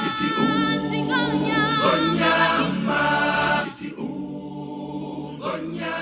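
Background music: a choir singing with vibrato, in a gospel style.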